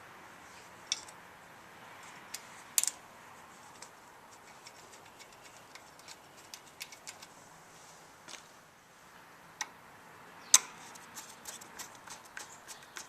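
Metal hand tools and handlebar hardware clicking and clacking during reassembly: scattered sharp clacks, the loudest about ten seconds in, then a run of quick small ticks near the end.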